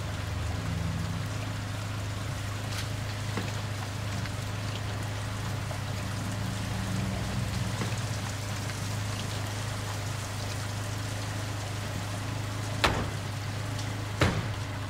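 Steady rain falling on a street over a low steady hum. Two car doors slam shut near the end, about a second apart.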